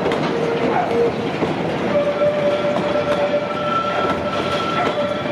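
Goods wagons rolling past on rails: a steady rumble with the wheels clicking over the rail joints. From about two seconds in, a steady high metallic squeal rings over it.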